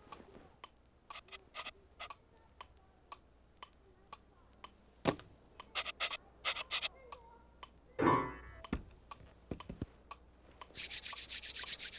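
Cartoon sound effects for a pet mouse: light scattered taps and scratchy clicks, a louder click about five seconds in, a short squeaky sound about eight seconds in, and a rapid high-pitched chatter near the end.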